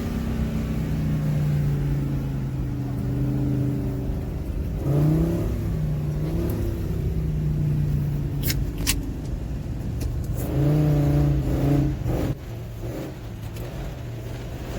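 Vehicle engine accelerating while driving off, its pitch climbing and then stepping down several times as it shifts gears. Two sharp clicks come through around the middle, and it gets quieter a little after the two-thirds mark.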